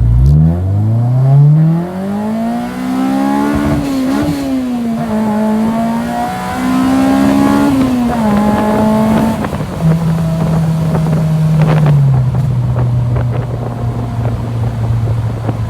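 Honda RSX four-cylinder engine pulling hard under acceleration. The revs climb steeply for a few seconds, rise and fall again through the gears, then drop and settle to a steady, lower drone for the last few seconds. It is a hard pull that the clutch doesn't like.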